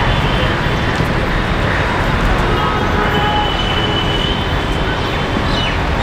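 Steady, loud rushing outdoor background noise, with a few faint high, thin tones over it.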